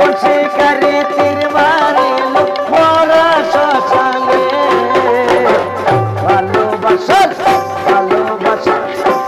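Bengali folk ensemble playing a lively instrumental passage: harmonium, a plucked lute, a double-headed barrel drum and a tambourine, with gliding melodic lines over a steady drum beat.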